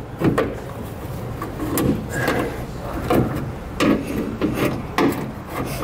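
Plastic push-pin fasteners being squeezed with needle-nose pliers and popped loose from a plastic wheel-well trim piece. Irregular clicks and knocks, with plastic scraping and rubbing in between.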